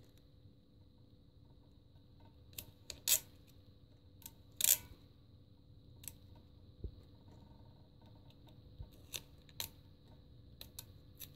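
Faint, scattered short rustles and clicks of hands pressing and smoothing a vinyl wheel-wrap decal strip onto a motorcycle rim, the loudest a brief scratchy rustle about four and a half seconds in. A faint steady high tone runs underneath.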